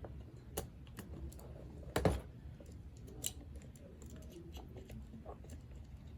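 Irregular small clicks and taps of hard plastic toy parts handled during disassembly of a Buzz Lightyear figure's arm mechanism, with one louder knock about two seconds in.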